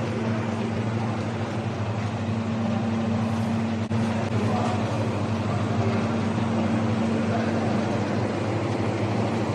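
Shoe upper vacuum moulding machine running with a steady mechanical hum.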